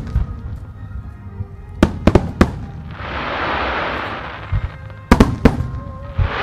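Aerial firework shells bursting with sharp bangs: one right at the start, a quick cluster of three about two seconds in and another cluster around five seconds. Between them come two swelling rushes of hiss, the second starting near the end, over faint music.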